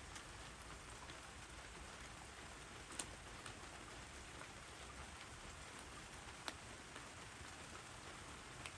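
Light rain falling steadily, with a few louder single drops landing now and then.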